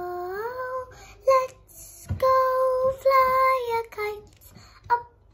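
A young girl singing, holding long notes with upward slides between them, then breaking off near the end.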